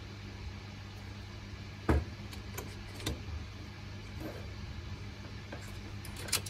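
Hands handling parts inside an open HP ProLiant DL380p G8 server chassis: one sharp knock about two seconds in, a softer knock a second later and a few light clicks near the end, over a steady low hum.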